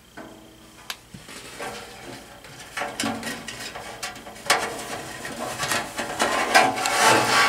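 Handling noise inside a thin sheet-metal heater cabinet: a hand and the power cord scrape and knock against the metal, with light clicks and rattles. It gets busier from about halfway through.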